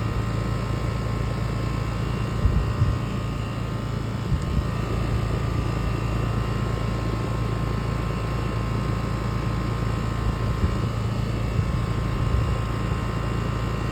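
Outdoor air-conditioner condenser unit running steadily: compressor hum with the whir of its fan. A few brief low thumps, the largest about two and a half seconds in.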